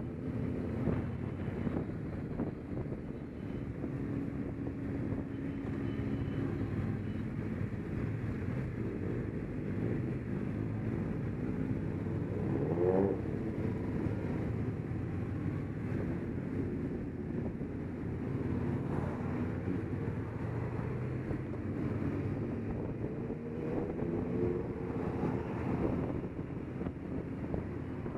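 Motorcycle engine running at road speed, heard close from the bike itself, with wind noise on the microphone. About halfway through, the engine pitch climbs briefly in a quick rev.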